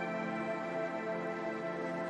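Soft ambient new-age music of sustained, layered tones holding a steady chord.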